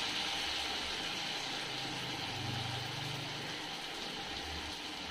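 Hot sunflower oil sizzling steadily as a batter-coated breadfruit slice deep-fries, with a low hum underneath for a second or so in the middle.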